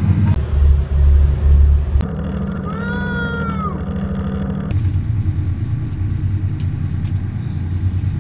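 Sport-fishing boat's engines running with a steady low drone, broken by a few abrupt cuts. About three seconds in, a brief high pitched sound rises and falls over the engines.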